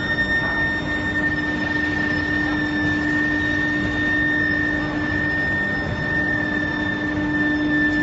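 Round-billet induction heating furnace line running: a steady industrial drone with a constant high-pitched whine over a lower hum, without pauses or knocks.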